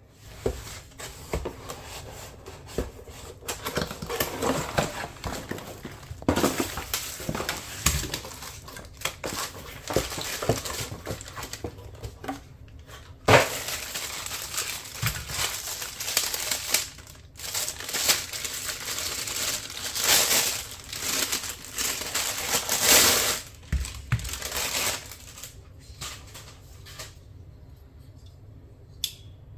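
Packaging being handled and opened: irregular crinkling and rustling of plastic wrapping with sharp clicks and knocks, the loudest about a third of the way in. It dies down near the end.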